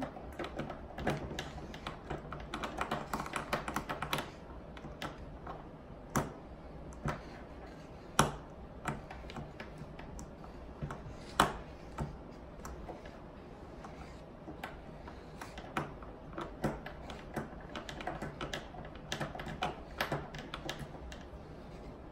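A Sharpie marker drawing on a paper plate: irregular scratchy strokes and light taps, with a few sharper clicks now and then.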